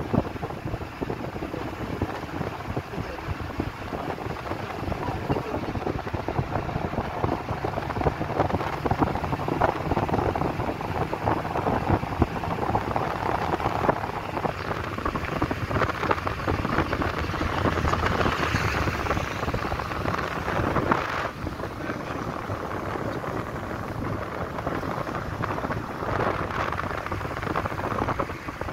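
Steady rush of wind on the microphone and road noise from a car driving along, a little brighter for a few seconds after the middle.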